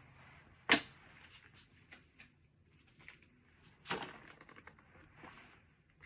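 Handling noises from craft items: a sharp click under a second in, a longer rustle about four seconds in, and faint scattered ticks and rustling between.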